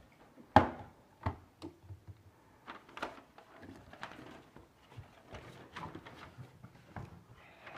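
Handling noises of rummaging: knocks and rustles as a backpack is searched and a hardcover textbook is picked up and its pages flipped. One sharp knock about half a second in is the loudest.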